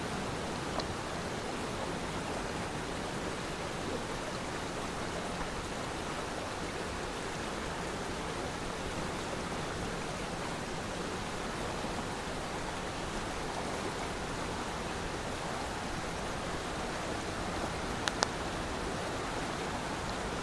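Steady rush of a waterfall, an even wash of falling water, with two short sharp clicks near the end.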